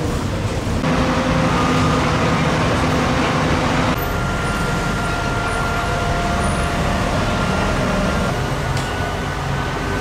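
Heavy crane truck's engine running steadily, with a faint high whine above it; the sound shifts abruptly about one second and four seconds in.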